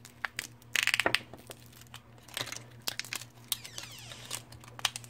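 Clear plastic bag crinkling as it is worked open around a small rubber toy figure, with scattered sharp crackles and a denser burst about a second in.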